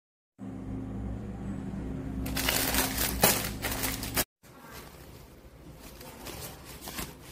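Crinkling and rustling of a nylon drawstring pouch and plastic packaging being handled, loudest from about two to four seconds in over a steady low hum, then cutting off. Quieter rustling follows after the cut.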